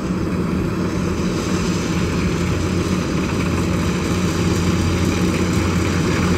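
Kubota DC-105X combine harvester running as it cuts rice: a steady diesel engine drone that grows a little louder.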